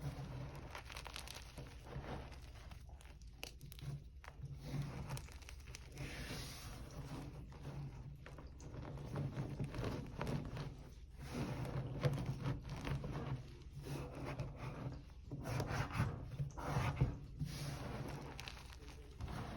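Hard gym chalk being crushed, giving an irregular run of dry crunching and crackling with short gaps. The loudest crunches come about twelve seconds in and again around sixteen to seventeen seconds.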